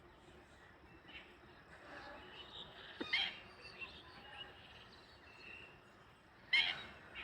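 Birds calling over faint background chirping: two short, sharp high-pitched calls, one about three seconds in and a louder one near the end.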